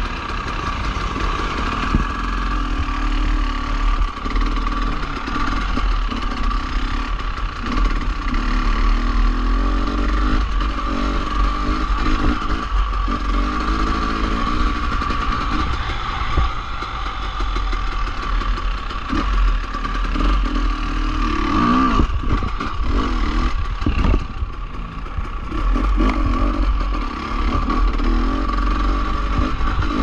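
Dirt bike engine ridden on rough single track, its pitch rising and falling as the throttle is worked, over a steady high whine.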